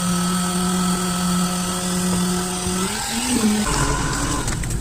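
A small motor running with a steady whine. About three seconds in its pitch wavers and rises briefly, then gives way to a rougher, lower rumble.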